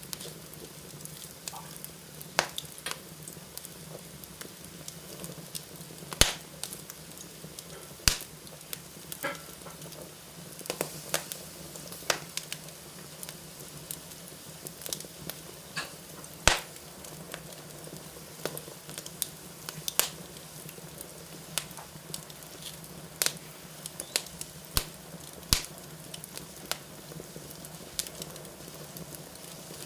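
Fire in a fireplace crackling: irregular sharp pops and snaps, one or two a second, over a steady hiss and a low hum.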